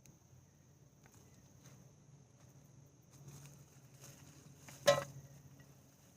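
Faint rustling and scraping of soil and sweet potato vines being worked by hand in a garden bed, with one sharp knock about five seconds in.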